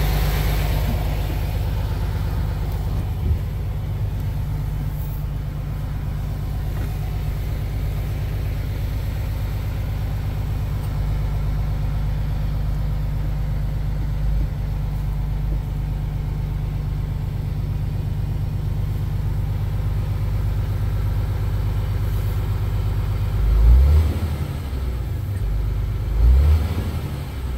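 MAN TGX 26.510 truck's six-cylinder diesel idling steadily, heard from inside the cab. Near the end it is revved briefly twice.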